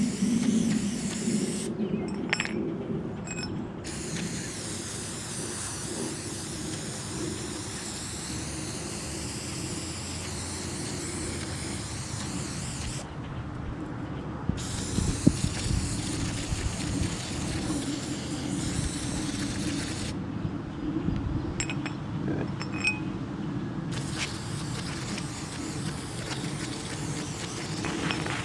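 Aerosol can of brake cleaner spraying in long hissing blasts, with the hiss stopping three times: briefly about two seconds in, again around the middle, and for several seconds later on, with small clicks in the pauses.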